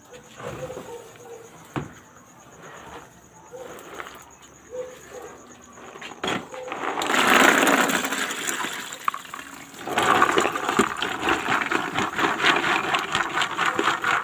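Soaking water poured off black beans from a plastic bowl, with a loud gush of pouring water about seven seconds in. Then a dense crackling patter as the wet beans and water are tipped into a plastic strainer basket to drain.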